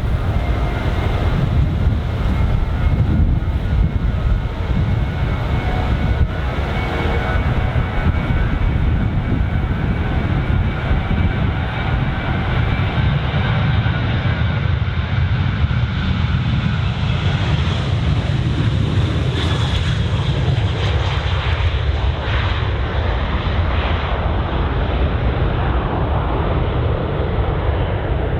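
A Boeing 737-800's CFM56-7B turbofan engines at takeoff thrust: a loud, steady jet roar over a deep rumble, with faint steady fan tones. The fan tones fade about halfway through, and a high hiss swells and dies away around two-thirds of the way in.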